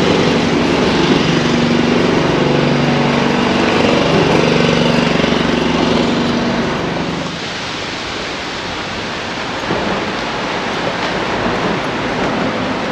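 An engine running steadily, a low hum of several even tones, that fades out about seven seconds in; a steady rushing noise carries on after it.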